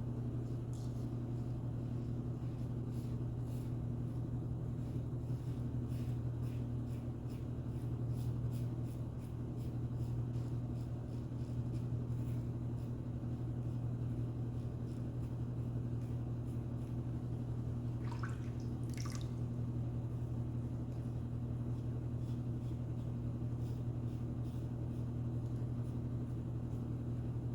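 Steady low hum of a laundry machine running, with faint scraping ticks of a 1961 Gillette Aristocrat safety razor stroking across stubble.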